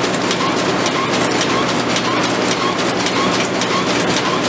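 Fully mechanical butter portion filling, forming and wrapping machine running: a steady mechanical clatter of rapid clicks with a repeating stroke about twice a second as its folding arms wrap each butter block in foil.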